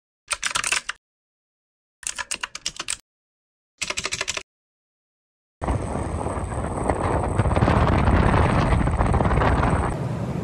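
Three short bursts of rapid clicking noise with dead silence between them, then the steady rush of a motorbike ride along a road, wind and road noise filling the microphone.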